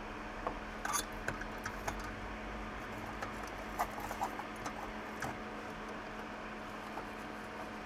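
Small, sharp clicks and taps of hand tools working on a tablet's circuit board, scattered through the first five seconds, over a steady low hum.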